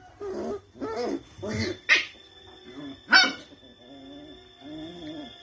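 Two puppies play-fighting, giving a run of short barks, the two loudest about two and three seconds in.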